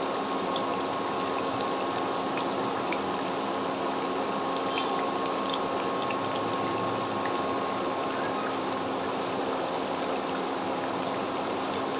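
Oil sizzling steadily as potato-and-wheat-flour snacks fry in a pan on low flame, with scattered tiny pops.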